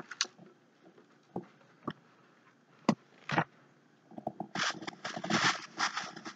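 A few separate light knocks and taps as a hollow plastic figure is handled and set down, then from about four seconds in a dense crinkly rustling as a bag is dug through.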